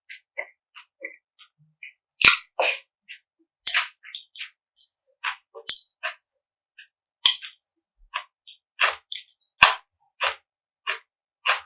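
Close-miked eating sounds: a person's crisp bites and chewing crunches with mouth clicks, short and irregular with near-silent gaps between.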